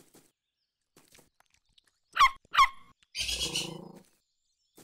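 Cartoon animal sound effects: two short, loud, squeaky calls that fall in pitch about half a second apart, then a harsher, raspy sound lasting about a second.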